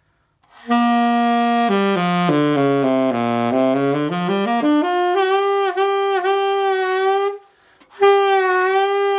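Saxophone playing a run that steps down the scale and back up, then a long held note with an even, wavering vibrato made by moving the jaw, as if chewing the reed. The held note breaks off once for a breath and starts again.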